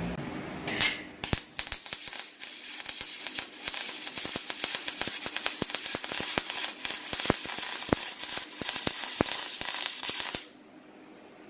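MIG welding arc on stainless steel from a RETOP MIG 250 welder, crackling with rapid irregular snaps over a steady hiss. It strikes with a sharp burst about a second in and cuts off suddenly near the end.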